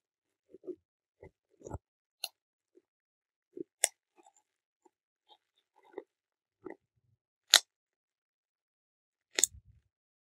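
Bubble wrap being squeezed and popped by hand: irregular soft crinkles and sharp pops with pauses between, the two loudest pops near the end.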